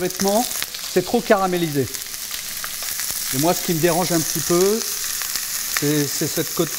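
Beef searing in hot fat in a cream-enamelled cast-iron cocotte, a steady sizzle, as the pieces are turned and moved against the enamel bottom with a fork. A few short pitched, voice-like sounds come and go over the sizzle.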